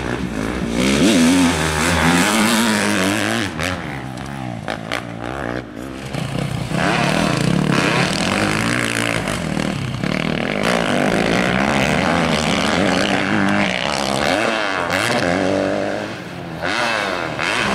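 Motocross bike engines revving up and down repeatedly as they ride the track. Several engine notes overlap and rise and fall, dipping for a moment a few seconds in and again near the end.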